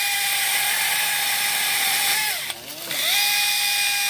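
Handheld electric pruning saw running with a steady high whine. Just past halfway its motor slows and drops in level for about half a second, then speeds back up.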